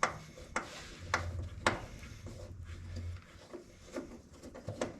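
Sharp metallic clicks and knocks of hand tools working on a sheet-metal furnace panel: four about half a second apart in the first two seconds, then fainter taps, with a low hum between about one and three seconds in.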